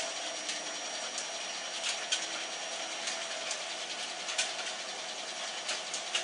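Model train running on its track: a steady small-motor hum with irregular light clicks, about one a second.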